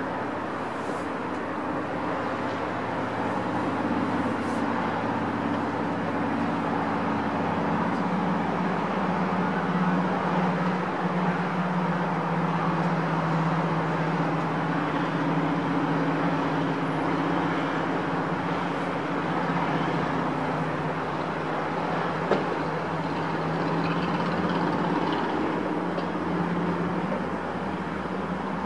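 Steady hum of distant city road traffic, with engine tones slowly rising and falling, and one short click about 22 seconds in.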